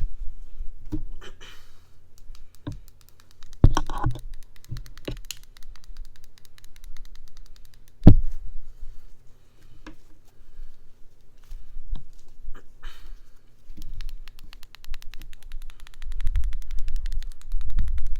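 An ASMR trigger close to the microphone: rapid light clicking and tapping, with a few louder knocks, the loudest about eight seconds in, and some low handling rumble near the end.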